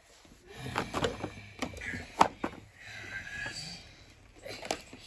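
Scattered light knocks and clicks as toys and a carded blister pack are handled, with a brief high squeak about two to three seconds in.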